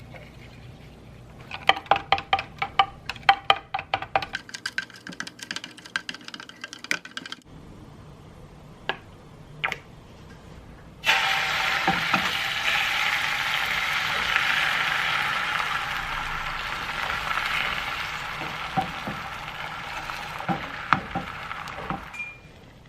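Quick, rapid clinking strokes against a bowl, then a few single clicks. About eleven seconds in, food starts sizzling loudly in a hot pan, and the sizzle fades slightly before stopping near the end.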